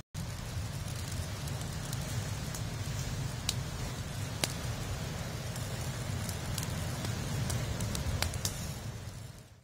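Wood fire burning, with scattered sharp crackles and pops over a steady low rumble.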